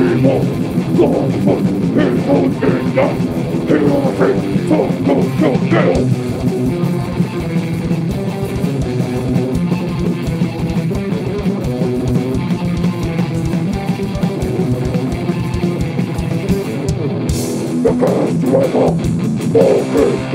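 A heavy metal band playing live: electric guitar riffing over a drum kit.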